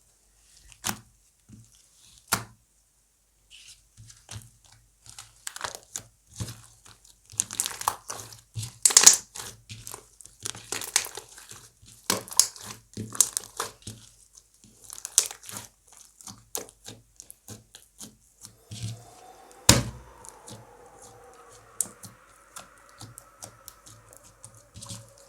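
Slime being squished, stretched and folded by hand: irregular sticky crackles and pops, thickest in the middle, with one loud sharp pop about twenty seconds in.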